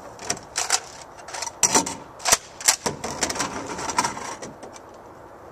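Nerf Recon CS-6 blaster being taken apart by hand: plastic clicks, snaps and rattles as its parts come off. A quick run of sharp clicks over the first three seconds or so, then quieter handling.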